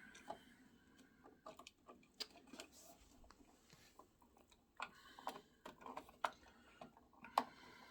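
Irregular light clicks, taps and scrapes of hands working a wall toggle switch and its wiring out of the electrical box, coming more often in the second half with a sharper knock near the end.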